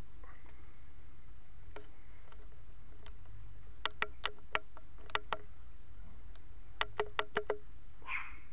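Charcoal fire burning in a kettle grill, crackling with sharp pops that come in two short clusters of about five or six, over a steady low background hum.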